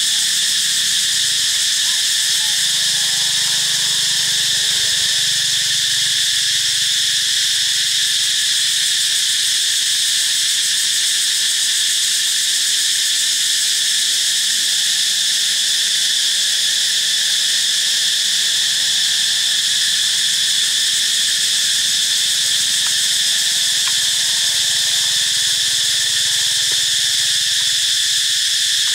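Steady chorus of forest insects: a continuous high-pitched buzz that never breaks or changes.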